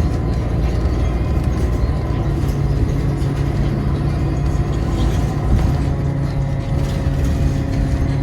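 New Flyer XDE40 diesel-electric hybrid bus running, a steady low rumble with a held hum and a fainter high tone over it.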